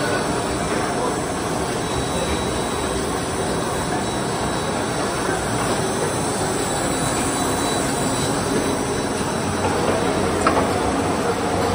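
Automatic rigid box making line running: steady machinery noise from the paper gluing machine's rollers and the conveyor. A sharp click comes about ten and a half seconds in.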